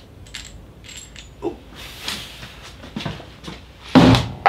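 A heavy metal cylinder weight being unhooked from a weight hanging on a coil spring and carried off: a few light metallic clinks and taps, then one heavy clunk about four seconds in.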